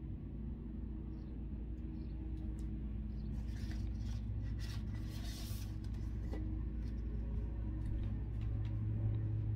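Steady low room hum, with light clicks and, for about two seconds in the middle, a soft rustle of hands brushing clothing as she signs.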